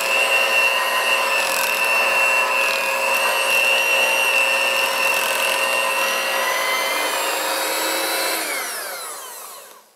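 Electric hand mixer running at a steady whine, its beaters working through thick cream cheese in a glass bowl. Near the end it is switched off and the whine falls away as the motor spins down.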